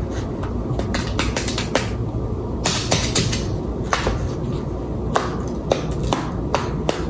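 Crusty Italian bread, toasted in olive oil, crackling and crunching as it is torn apart by hand, in a run of many small sharp crackles.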